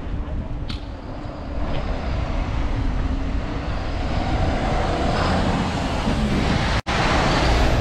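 An Iveco refrigerated box truck's diesel engine approaching head-on and growing louder as it draws close, over a steady wind rumble on the microphone from the camera's own movement. The sound cuts out for an instant near the end.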